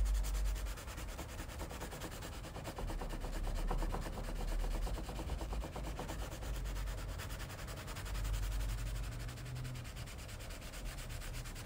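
Hand wet-sanding of a kayak's plastic hull with a sanding pad, scrubbing back and forth over a crack to rough up the surface before it is heat-welded.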